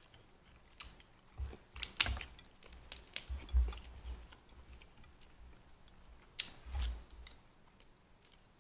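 Close-up eating sounds from a seafood boil: wet chewing and biting with sharp clicks and crackles. They come in short bursts about one, two, three and a half and six and a half seconds in.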